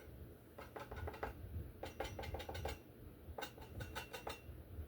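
A palette knife clicking and tapping in three quick runs of light strikes, a metal blade working oil paint onto a painted steel sawblade to put in sticks and twigs.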